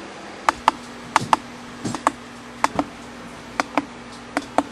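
A series of sharp clicks and taps, about ten of them, often in quick pairs at irregular intervals, over a steady low hum.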